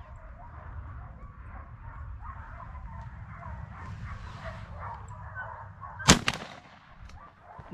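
One shotgun shot about six seconds in, the loudest sound by far, with a second sharp crack right behind it. Before it, a steady low rumble.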